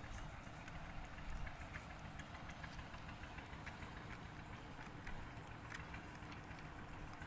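Kitten lapping milk from a plate: faint, quick, irregular wet clicks of its tongue over a low steady rumble.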